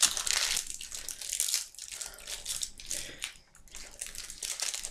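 Irregular crackling and crunching as a Violet Crumble honeycomb chocolate bar is broken apart in its crinkly wrapper.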